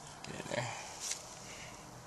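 Faint rustling of a dry, fibrous tinder bundle being worked in the hands, with a short low sound about half a second in and a light click about a second in.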